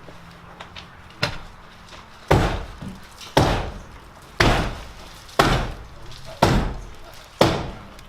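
Sledgehammer striking timber: seven heavy blows on wood, evenly paced at about one a second, each with a short fading tail, as a timber is driven into place.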